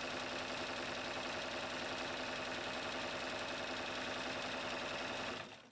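1957 Necchi Supernova Automatica electric sewing machine running steadily as it sews a zigzag pattern stitch, with a fast, even ticking of the needle mechanism. It fades out about five seconds in.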